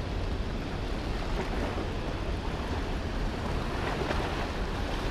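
Steady rush of river water pouring out of a hydroelectric dam's spillway, with wind buffeting the microphone.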